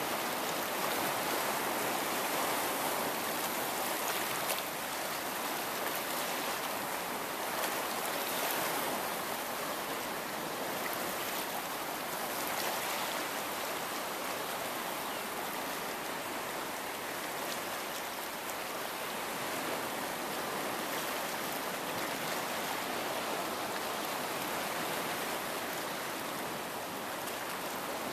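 Small sea waves washing and splashing against a rocky shore as the tide comes in: a steady hiss of moving water, a little louder in the first few seconds.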